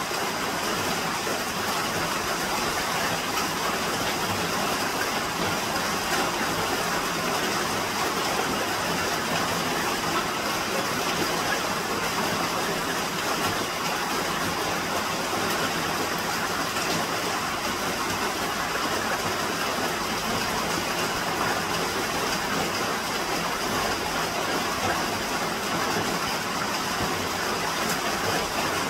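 Steady, even rushing of water, unbroken and unchanging.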